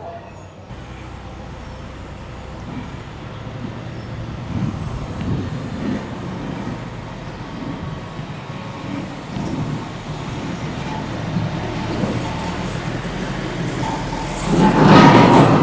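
Road traffic: a motor vehicle running and growing louder, passing close about fourteen and a half seconds in, where it is loudest.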